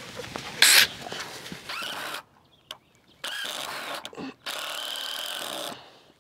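A loud sharp knock about a second in, then a cordless drill running in two short steady spells, driving screws into a board overhead.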